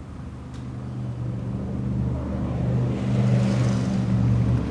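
Motor vehicle engine running with a steady low hum, growing steadily louder as it approaches.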